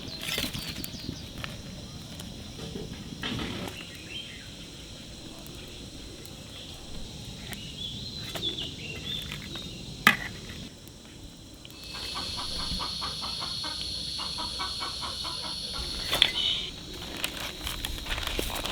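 Outdoor rural background: birds chirping, a steady high insect-like whine for a few seconds in the second half, and scattered sharp clicks and knocks, the loudest about ten seconds in.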